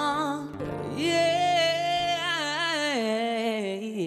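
Female vocalist singing a long wordless melisma with vibrato over acoustic guitar accompaniment, holding a high note, then stepping down in pitch near the end.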